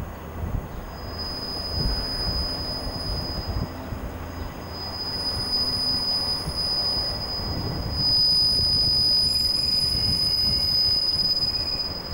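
Sprinter diesel multiple unit pulling into a station on curved track: a steady high-pitched wheel squeal over a low rumble, getting louder about eight seconds in as the train comes close.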